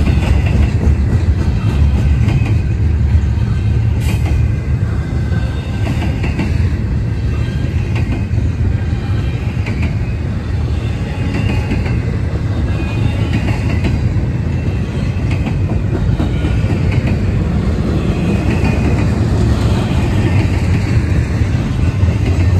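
Double-stack intermodal freight train's well cars rolling past: a steady, loud rumble of steel wheels on rail, with faint high wheel squeals now and then.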